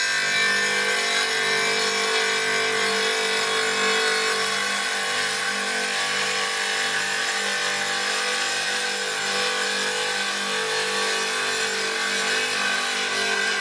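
Einhell TC-TC 618 wet tile saw running steadily, its blade cutting a 45-degree bevel along the edge of a tile: an even whine with a gritty grinding noise that holds steady throughout.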